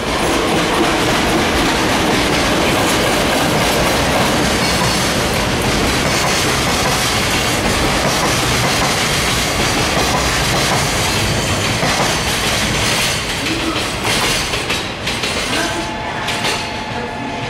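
JR Freight EF66 0-series electric locomotive passing, followed by its container flatcars rolling by with a steady, loud clatter of wheels over the rail joints. Near the end the rumble thins to separate clicks and a steady high tone joins in.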